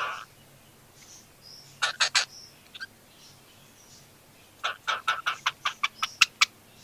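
Cockatiel chirping: three short, sharp chirps about two seconds in, then a rapid run of a dozen or so short chirps near the end.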